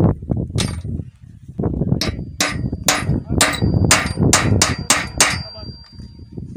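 Hammer striking metal in a run of about nine blows that come faster toward the end, with a faint metallic ring carrying between the blows.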